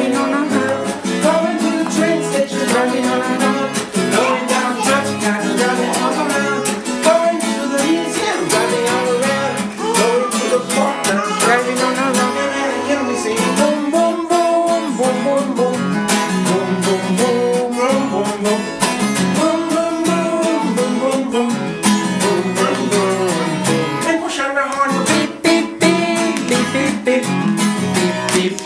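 Children's song played on a strummed acoustic guitar, with singing.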